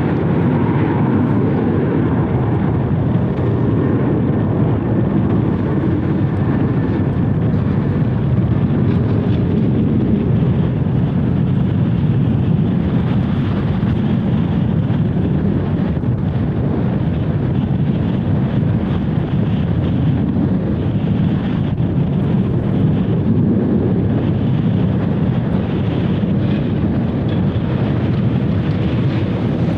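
Jet airliner engines running at takeoff power, heard as a loud, steady rumble.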